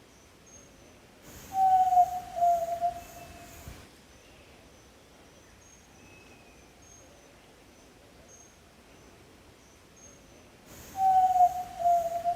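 Yellow-legged tinamou (jaó-do-sul) giving its low whistled call twice, about nine seconds apart: each call a drawn-out whistle in two parts, dropping slightly in pitch. Faint high chirps repeat steadily behind it.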